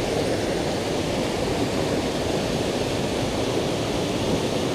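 Steady rush of a mountain trout river flowing over rocks, an even hiss with no breaks.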